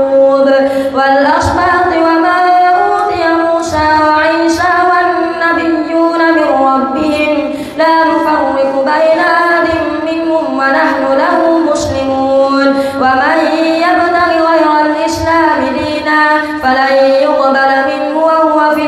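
A boy's voice chanting Quran recitation in the melodic tarawih style, long held and ornamented notes in phrases with short breath pauses.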